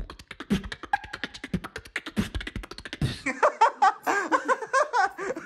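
A man beatboxing a fast, technical pattern of rapid mouth clicks and deep kick sounds for about three seconds, then breaking into laughter.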